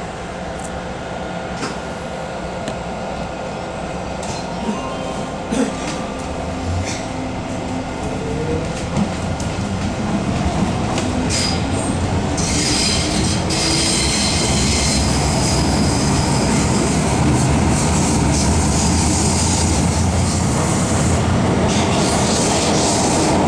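Inside an MTR Kwun Tong Line metro car as the train pulls out of a station and picks up speed. The traction motor whine rises in pitch over the first dozen seconds, with clicks of wheels over rail joints. From about halfway in, a high wheel squeal and rushing noise sounds for roughly ten seconds as the train runs on at speed.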